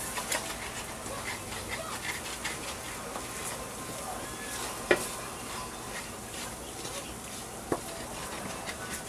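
Wooden spoon stirring and scraping flour and onions around a stainless steel skillet as the roux browns in hot oil, with a light sizzle. Two sharp clicks stand out, one about five seconds in and a fainter one near the end.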